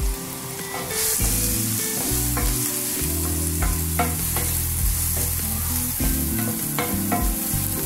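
Diced red onion and green chillies sizzling as they fry in a ceramic-coated wok. A wooden spatula scrapes and taps the pan in short strokes as they are stirred. The sizzle picks up about a second in.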